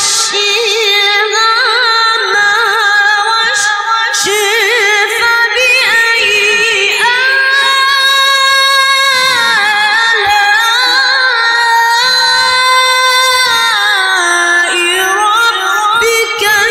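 Melodic Quran recitation by a man's voice pushed into a very high register, holding long notes with wavering, ornamented runs.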